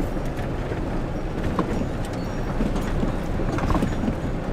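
Iveco Daily camper van driving slowly as it pulls in, engine running, with many small irregular crackles and knocks from the tyres over uneven ground.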